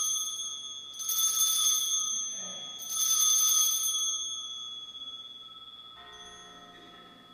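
Altar bell struck during the elevation of the chalice at the consecration: ringing from a strike just before, struck again about a second in and near three seconds in, each ring dying away slowly.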